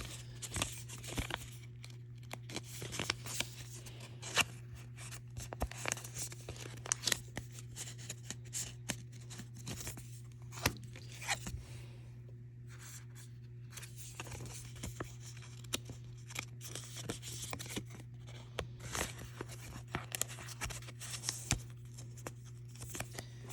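Pokémon trading cards being handled and slid into plastic card sleeves: scattered light rustling, crinkling and clicks of plastic and card, over a steady low hum.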